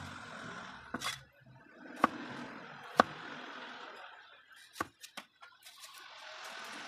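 Cleaver knocking on a wooden chopping board while cutting a red onion: single sharp knocks about a second apart, the loudest about three seconds in, then three quick knocks near five seconds.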